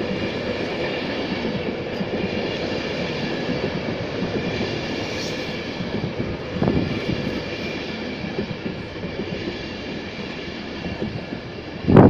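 Electric InterCity 225 train (Class 91 locomotive with Mark 4 coaches) rolling slowly along the platform, a steady rumble with faint high steady tones over it and a brief louder knock about two-thirds of the way through.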